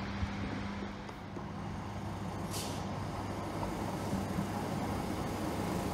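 Two coupled Class 156 Sprinter diesel multiple units running into the station, a steady diesel engine hum over the rumble of the wheels. A short hiss of air from the brakes comes about two and a half seconds in.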